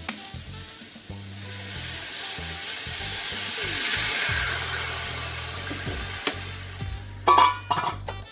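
Vegetables sizzling in a hot steel pot as sake is poured in, the hiss swelling for a couple of seconds and then easing. Near the end a metal lid clanks onto the pot with a short ringing clatter. Background music plays throughout.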